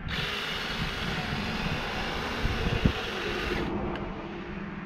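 Small chainsaw running at speed, cutting into a pumpkin: a loud, steady engine hiss that starts suddenly and cuts off abruptly near the end, leaving a lower engine hum.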